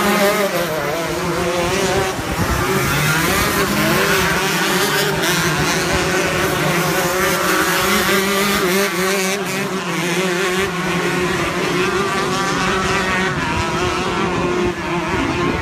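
Senior shifter kart engines, 125cc two-strokes, running at high revs, their pitch wavering up and down without a break.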